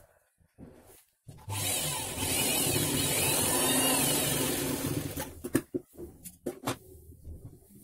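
Sewing machine running at speed, stitching a dart through the blouse fabric for about four seconds from a little over a second in. After it stops come a few sharp clicks.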